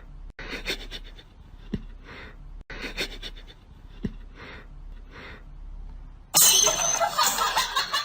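Repeated breathy panting, one breath roughly every half to three-quarters of a second. About six seconds in, a much louder noisy burst cuts in suddenly and continues.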